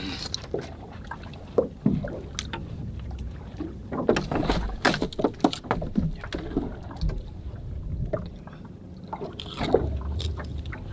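Small fishing boat drifting at sea: water moving against the hull over a low rumble, with scattered knocks and clicks from rods, reels and gear handled aboard, busiest about four to six seconds in.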